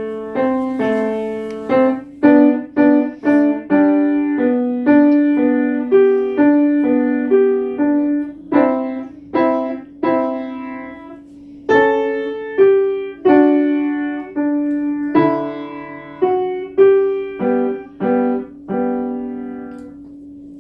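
Piano playing a simple melody over chords, each note struck and left to decay, ending on a held note that fades out.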